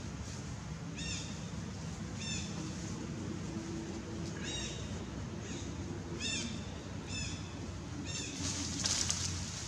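Short, high-pitched animal calls, each a quick rising-and-falling note, repeated about once every second or so over a steady low background. A louder burst of hiss comes near the end.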